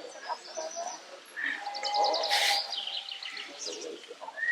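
Birds chirping and twittering in short, high calls, with a brief rush of noise about two and a half seconds in.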